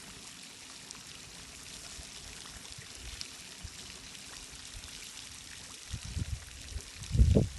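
Steady rush of running water, with two brief low rumbling bumps near the end.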